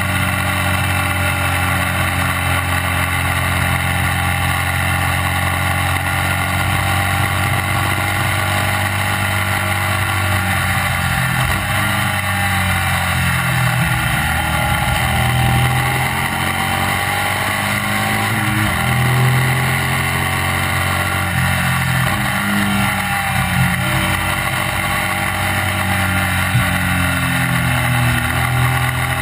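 Classic racing sidecar outfit's engine at speed, heard on board. The note holds steady for about the first ten seconds, then drops and climbs again several times as the outfit slows and accelerates through the corners.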